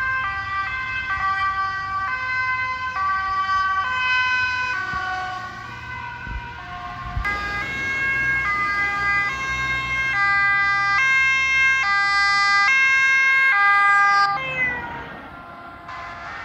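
Dutch police car's two-tone siren, switching back and forth between a high and a low note, louder from about halfway; near the end the pitch drops as it passes and it fades away.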